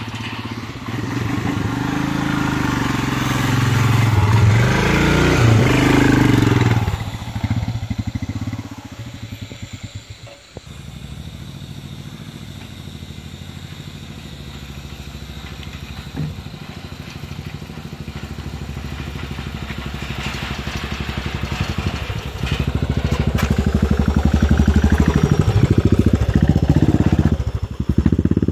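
Royal Enfield Himalayan's single-cylinder engine running as the bike rides across a steel-grate suspension bridge and passes close by. It is loudest around four to seven seconds in, then fades. From about twenty-two seconds in, a motorcycle engine runs loudly again as a rider pulls away on a dirt trail.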